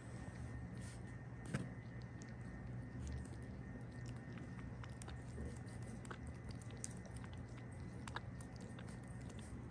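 Kitten suckling milk from a nursing bottle's rubber nipple: small wet clicks and smacks from its mouth on the nipple, with a louder click about one and a half seconds in and another near the end, over a steady low hum.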